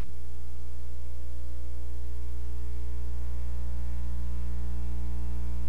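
Steady electrical mains hum with a stack of evenly spaced overtones, unchanging throughout, with a brief low click right at the start.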